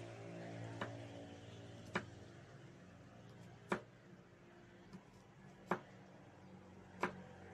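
Kitchen knife slicing garlic cloves on a wooden cutting board: about six sharp knocks of the blade on the board, a second or so apart, over a faint low hum.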